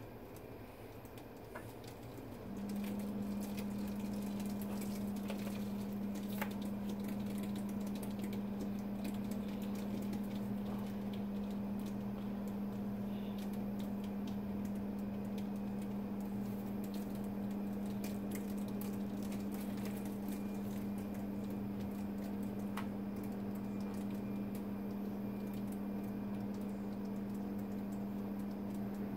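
A steady low electric hum comes on about two and a half seconds in and holds at one pitch, over faint scattered clicks and taps.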